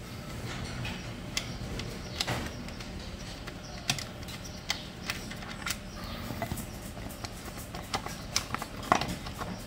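Irregular small metallic clicks and ticks of a screwdriver and screws as the two small screws holding the air filter box of a Yamaha 25 hp outboard's carburettor are worked out. The louder ticks come about four seconds in and near the end.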